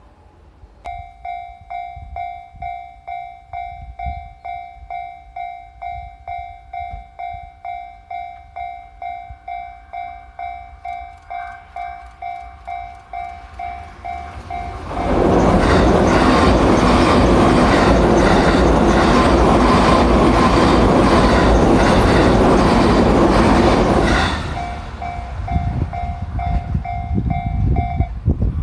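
Japanese railway level-crossing warning bell dinging about twice a second. About halfway through, a train passes over the crossing for roughly nine seconds, a loud rush of wheel and rail noise that drowns out the bell. The bell rings on after the train has gone and stops shortly before the end.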